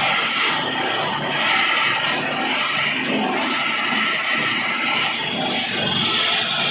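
Belt-driven flour mill (grinding chakki) driven by an induction motor, running and grinding: a steady, harsh grinding noise with the whir of the spinning pulley and flat belt.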